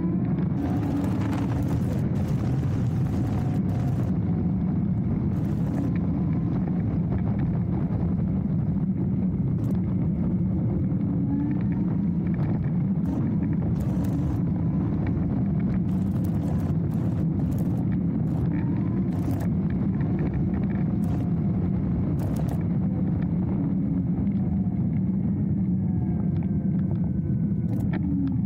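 Steady wind rumble and tyre noise from a Dualtron Thunder electric scooter riding along an unpaved path, with a faint motor whine that rises and falls with speed and scattered small clicks.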